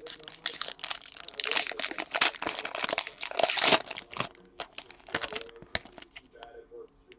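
Trading card pack wrappers crinkling and tearing as hockey card packs are ripped open and handled, a dense crackle that thins out about six seconds in.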